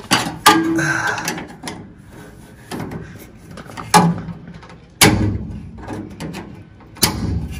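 Screwdriver clicking and knocking on the metal retaining clips and pivot pin of a 1962 Volkswagen Type 2's parking brake handle as they are pried off and pushed out. A handful of short, sharp metal clicks and knocks, with two heavier knocks about two seconds apart in the second half.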